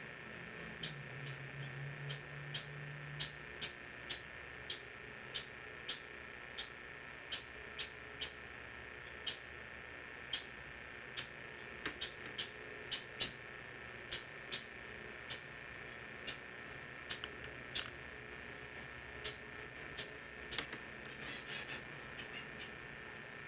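Faint, short high-pitched clicks repeating irregularly, about one or two a second, over a steady faint whine.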